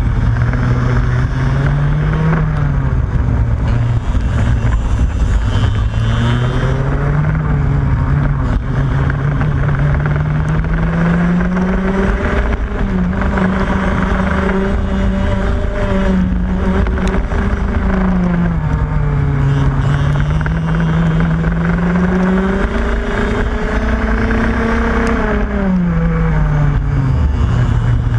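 Racing go-kart engine at full race pace, heard from on board: its pitch climbs as the kart accelerates, holds high on the straights and drops as it slows into corners, several times over, with the sharpest drop near the end. A steady low rush runs underneath.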